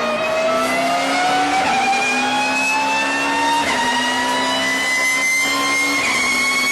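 Car accelerating with a loud straight-cut gear whine that climbs steadily in pitch as speed builds: the whine of spur gears meshing under load.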